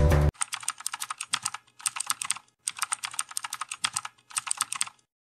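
Keyboard typing sound effect: quick key clicks in four short runs with brief gaps between them, stopping about five seconds in. Background music cuts off just as the clicking begins.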